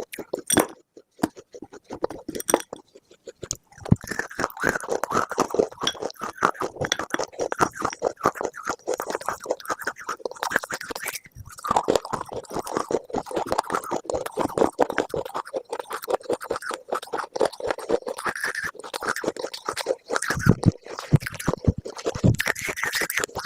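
Close-miked crunching: a dense run of rapid crackles that starts about four seconds in, after a few seconds with only scattered clicks.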